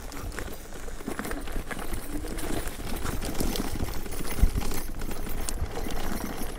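Electric dirt bike ridden along a rough dirt trail: rapid, irregular rattling and clicking over a low rumble from the tyres on the ground.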